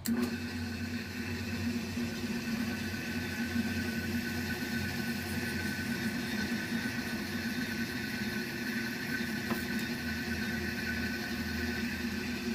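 Restored 1940s Walker-Turner 900 bench drill press running at its slowest belt speed, a steady motor-and-pulley hum, while the bit bores through a strip of wood. The run tests a MuggyWeld brazing repair on the slow-speed pulley.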